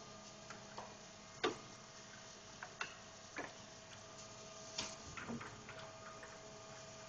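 Faint steady machine hum with a thin tone running under it, broken by scattered light clicks and taps at irregular intervals. The sharpest click comes about one and a half seconds in, and a cluster of them about five seconds in.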